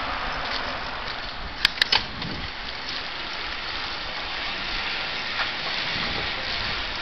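Steady rushing wind and tyre noise from riding a bicycle over city pavement. Three sharp clicks come close together about a second and a half to two seconds in.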